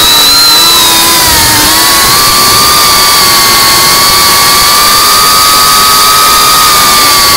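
FPV racing quadcopter's brushless motors whining under throttle. The pitch sags briefly about a second and a half in, climbs again and holds steady, then eases down near the end.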